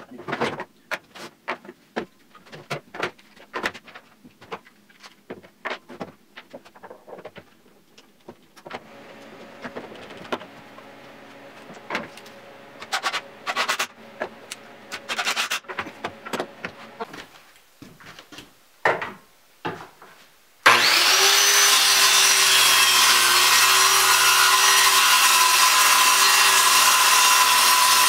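Knocks and clicks of wooden frame pieces being handled and clamped, then a few short bursts of a cordless impact driver driving pocket-hole screws. About twenty seconds in, a circular saw starts abruptly and runs steadily, cutting a sheet of plywood along a track guide; this is the loudest sound.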